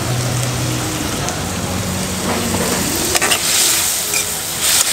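Diced vegetables and tofu sizzling in a wok over a gas burner while a metal spatula stirs and scrapes them. There is a sharp clack of the spatula on the pan about three seconds in, and the sizzle grows louder after it.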